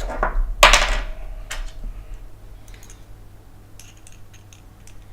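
Small hand tools and printer parts being handled on a work surface: a loud knock just under a second in that rings briefly, then a few light clicks.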